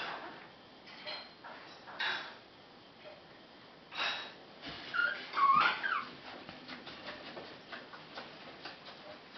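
Basenji puppy whimpering with a short squealing cry that rises and falls in pitch about five seconds in. Before it come a few short scuffling sounds, and after it a run of faint small ticks.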